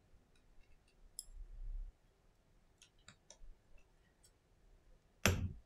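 Small clicks and ticks of tweezers and fingers handling the small parts of an iPhone 6s display assembly, with a dull bump between one and two seconds in and one louder sharp knock near the end.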